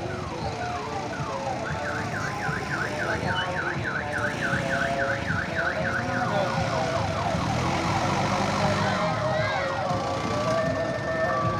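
Electronic siren sound effects from a decorated odong-odong mini tour train: a fast warbling yelp of about four sweeps a second, then a quicker falling wail, then alternating two-note beeps near the end. The vehicle's engine runs underneath.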